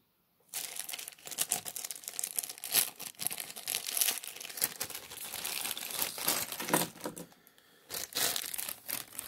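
Plastic accessory bag crinkling and crackling as it is handled and opened. It starts about half a second in, dips briefly near the end, then crackles again.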